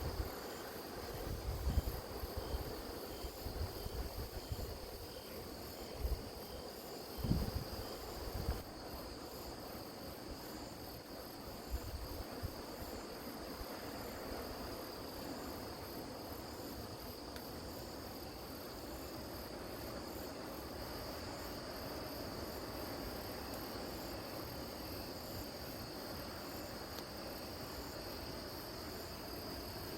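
Crickets and other grass insects chirping, a steady high trill with faster pulsed chirps above it. Wind buffets the microphone in gusts during the first several seconds.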